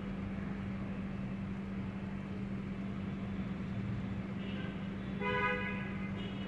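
Street traffic noise under a steady low hum, with a vehicle horn sounding briefly about five seconds in, the loudest sound.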